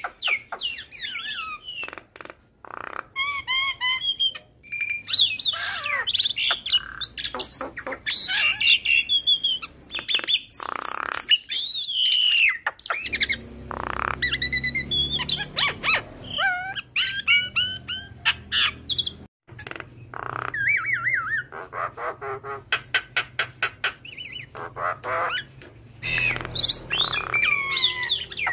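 Javan myna singing a long, varied song of rising and falling whistles, harsh squawks and chatter, mixed with mimicked calls. There are fast runs of dry clicking, the longest about two-thirds of the way through.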